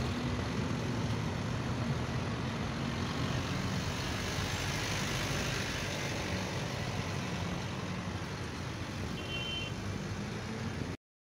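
Steady outdoor street noise of vehicle engines running, with a short high beep about nine seconds in. The sound cuts off suddenly near the end.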